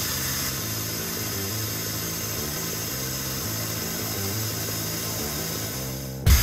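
Steady hiss of dry hard turning on a CNC lathe, a CBN insert cutting hardened steel, under background music with held low notes. A sudden loud low hit comes near the end.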